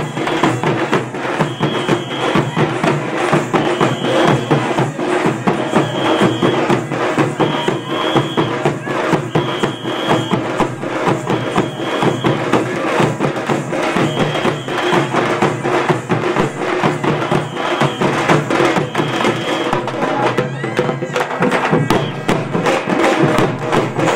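A troupe of dappu frame drums beaten with sticks in a fast, driving, interlocking rhythm. A short high note recurs about every two seconds for most of the stretch.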